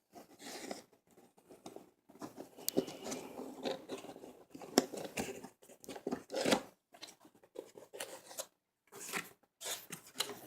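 Packaging being cut and torn open to unbox a product, with irregular snips, scrapes and rips separated by short pauses.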